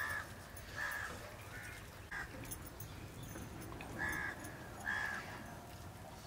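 A bird calling in the background: about five short calls, spaced a second or so apart.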